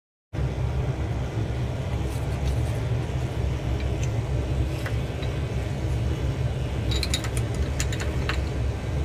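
Steady low machine hum of laboratory equipment, with a few light glassy clicks and clinks as Schlenk tubes are handled, most of them in a cluster about seven to eight seconds in.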